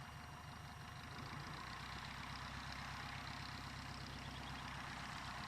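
A 1946 Taylorcraft's light-aircraft engine and propeller running steadily, with a continuous rushing noise over the low engine drone.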